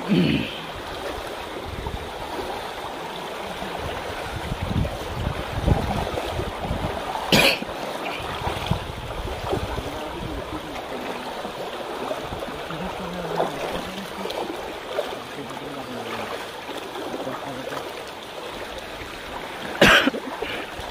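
River water flowing steadily, with two sharp knocks, one about seven seconds in and one near the end.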